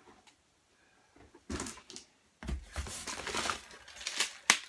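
Items being handled and pulled from a cardboard box of mixed goods: rustling and crinkling of plastic packaging and cardboard in a short burst, then a longer stretch, ending in one sharp click.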